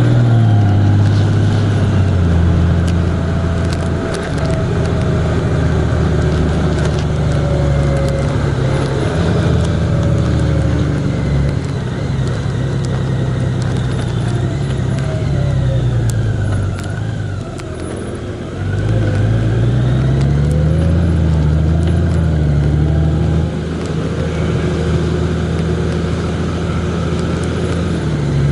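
Vehicle engine running on the move, with road and wind noise; its note sinks and climbs several times as the throttle changes, drops off briefly about two-thirds of the way through, then climbs again.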